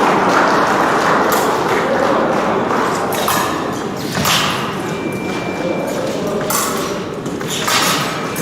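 Épée fencing bout: feet thudding on the piste and blades knocking several times, with a short electronic beep from the scoring apparatus about five seconds in, over steady hall noise and voices.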